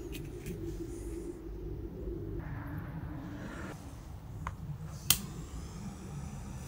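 Faint low background rumble with soft handling noises while the fuse of a small firework fountain is being lit; a small click, then one sharp click about five seconds in.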